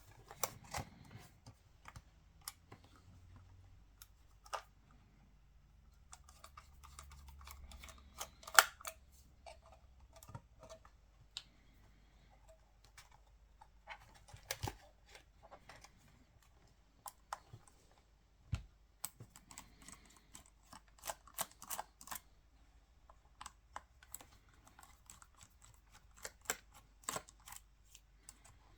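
Irregular small clicks and taps of a screwdriver, tiny screws and camera body parts being handled while a Canon EOS 5D DSLR is taken apart, with one sharper tap about eight and a half seconds in.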